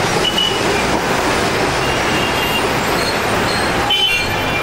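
Two-section street tram rolling past close by, amid steady city traffic noise, with a few brief high-pitched tones, the most of them near the end.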